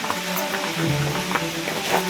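Background music with held, stepping notes and light percussive clicks.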